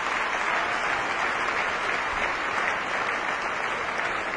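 A large audience applauding steadily, dense clapping with no break.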